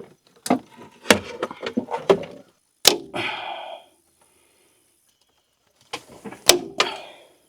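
Sharp clicks and knocks of hand tools and parts being handled during tractor wire splicing: several separate strikes, with a short rasping noise about three seconds in and a quiet stretch before two more clicks near the end.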